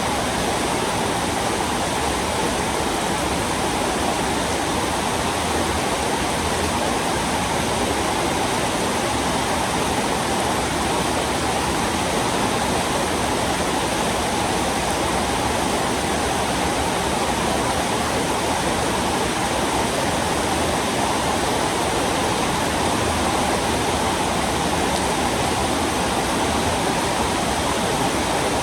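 Heavy rain falling, a steady, even hiss with no break.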